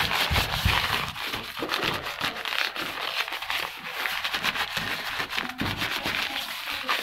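Crumpled sheet of old newspaper wiped back and forth over a dusty glass window pane: a continuous rustling of paper over glass, full of small crackles.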